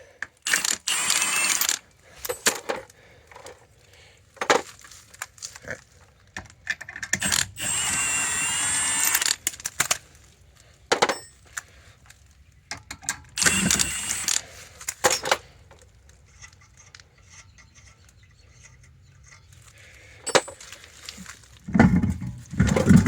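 Metallic clinks, rattles and scraping from hand tools and loose lug nuts, in several separate bursts of a second or two with short clicks between them.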